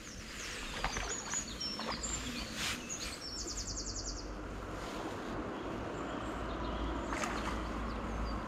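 A small bird chirping high and briefly, with a quick trill about three to four seconds in, over a steady low city rumble; a few faint clicks.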